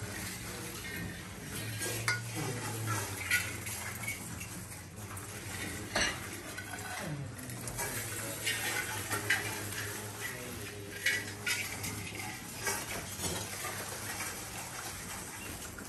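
Rice grains poured and swept over metal mandala-offering plates, a running patter of small rattles and clinks from several plates at once, over a steady low hum.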